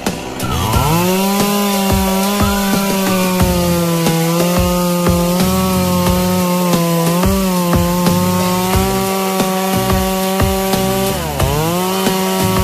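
Two-stroke chainsaw running at high revs, cutting through wood. Its engine pitch climbs in the first second, holds steady with small wobbles, dips sharply near the end and climbs back.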